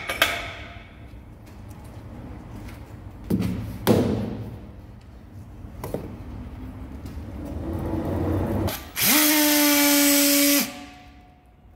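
A few sharp metal clanks around a large lathe chuck as it is turned with a bar. About nine seconds in, a battery-powered strapping tool's motor whirs up fast to a steady high pitch for about a second and a half, tensioning plastic strap, then stops.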